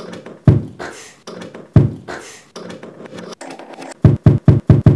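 Music with heavy percussive hits: two strong beats in the first two seconds, then a quick run of five hits near the end.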